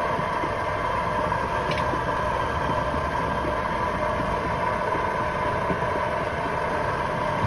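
Motor-driven kachchi ghani oil mill running steadily, its pestle turning in the iron mortar as it crushes kalonji (nigella) seeds for cold-pressed oil: an even mechanical drone with a steady hum.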